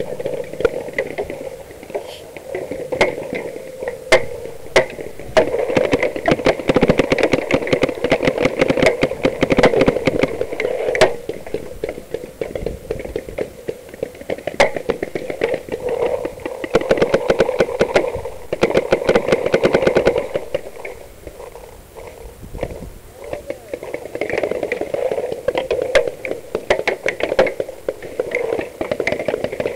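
Paintball markers firing in fast strings of sharp pops, with lulls between the strings.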